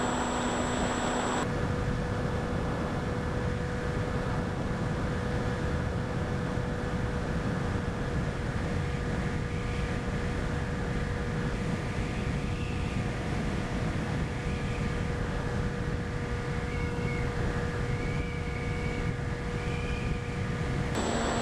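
Onboard sound of a small electric RC airplane in flight: the brushless motor and propeller give a steady whine with overtones over heavy wind rush on the microphone. A fainter, higher warbling tone comes and goes in the second half.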